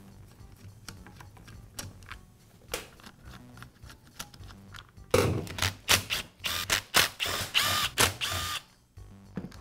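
Cordless drill-driver spinning screws out of a circular saw's plastic rear handle in several short whirring bursts over about three seconds, starting about five seconds in. Before that, faint clicks of a hand screwdriver working the handle screws.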